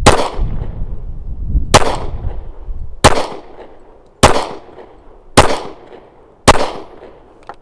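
Six .45 ACP shots from a Glock 36 subcompact pistol, fired about one a second, each a sharp crack with a short fading echo. The sixth shot empties the magazine.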